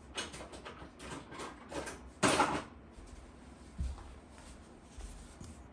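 Handling noise: a quick run of light clicks and knocks, then a brief louder scraping rustle about two seconds in, and a couple of soft thumps after it.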